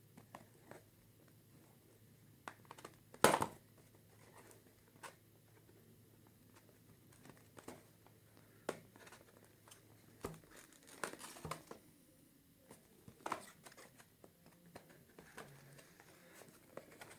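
Toothbrush packaging being opened and handled: scattered crinkling and rustling with sharp clicks and knocks, the loudest about three seconds in.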